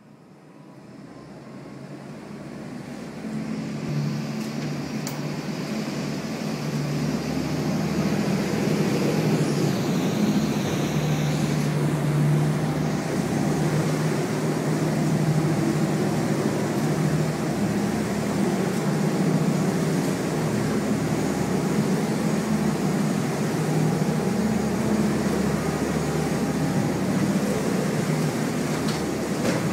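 A motorboat's engine runs steadily under way, a low hum over a broad rushing noise. It fades in over the first few seconds, then holds level.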